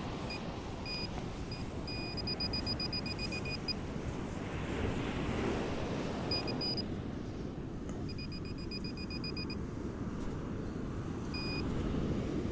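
Metal detector beeping as it is swept over a buried target: short high beeps, some single and some in quick trains, signalling coins in the sand. Underneath is a steady rush of surf and wind.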